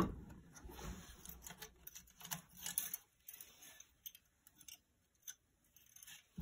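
Small metal clicks and taps of parts being handled as the carburetor and its linkage spring are worked loose from a small generator engine. A sharp knock comes right at the start, then scattered light clicks, thinning out to occasional faint ticks.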